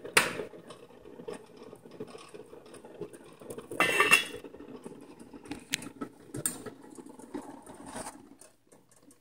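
A stainless steel lid clatters onto a pot of boiling water about four seconds in, with the bubbling of the water underneath. A few lighter metal clicks and knocks follow as the pot is taken off the heat.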